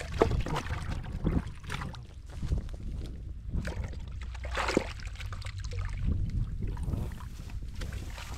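Wind rumbling on the microphone, with a few short bursts of rustling and scraping in dry straw.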